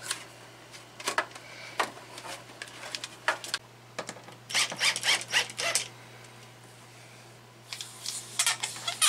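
Sharp plastic clicks and rattles from hands working on the refrigerator's control-board cover, scattered early, a quick cluster around the middle and more near the end.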